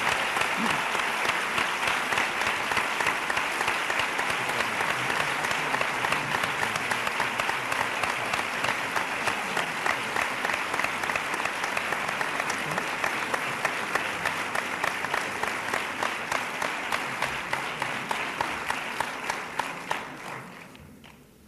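Audience applauding, a long steady round of many hands clapping that fades out near the end.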